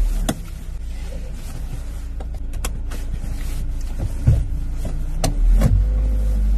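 Camper van's engine running, heard from inside the cab, with a few short clicks and knocks as the driver buckles up and works the key and gear lever. The engine grows louder from about four seconds in, as the van gets under way.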